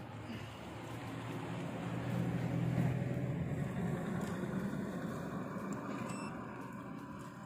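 A motor vehicle passing by, its engine and road noise swelling to a peak about three seconds in and then fading away.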